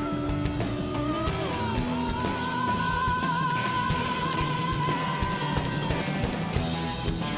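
A live hard rock band playing loudly, with electric guitar, bass and drums. About a second and a half in, a high note slides down and is then held with a slight wobble for about four seconds.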